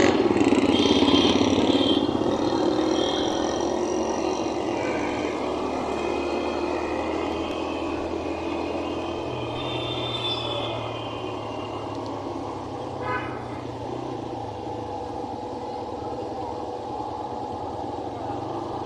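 Road traffic noise: motor vehicles running steadily, with a low rumble that slowly grows quieter.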